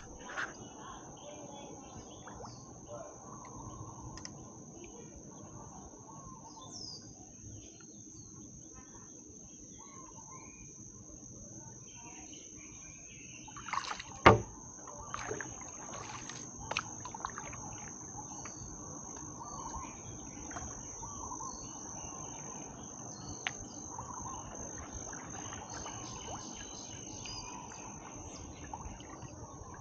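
A steady, high insect drone with scattered bird chirps over a low background noise, and one sharp knock about 14 seconds in.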